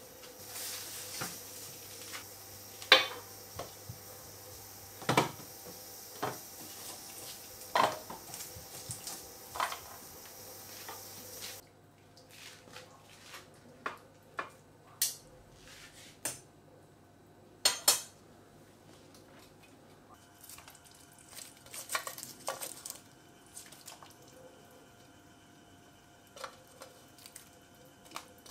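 Kitchen handling sounds: sharp clinks and knocks of a metal utensil against pots, a tray and a cutting board, single clicks a second or a few seconds apart over a faint hiss that drops away about a third of the way in.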